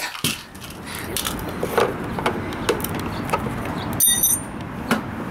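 Scattered light taps and clicks of small metal hand tools being handled on concrete over steady outdoor background noise, with one brief high metallic ring about four seconds in.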